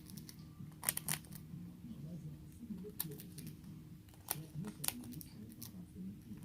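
Quiet scattered sharp clicks and taps, about half a dozen, the loudest pair about a second in, over a faint low murmur of background voices.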